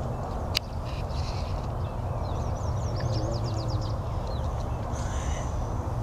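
Wild birds calling: a quick run of short high chirps about two to three seconds in, over a steady low rumble, with a single click about half a second in.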